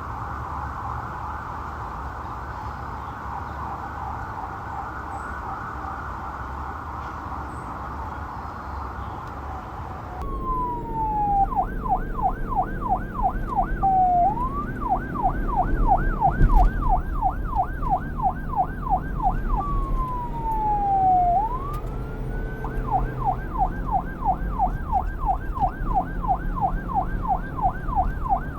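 Police car electronic siren. For the first ten seconds it is distant and blurred, warbling rapidly. Then a close, clear siren yelps fast, several rises and falls a second, twice breaking into a slow falling sweep that climbs back into the yelp, over a low rumble with a single thump about two thirds of the way through.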